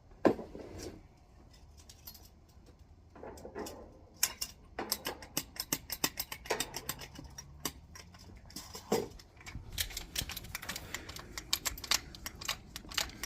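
Metal hand tools being handled, with irregular sharp clicks and clinks. A loud click comes right at the start, and the clicking grows dense from about a third of the way in.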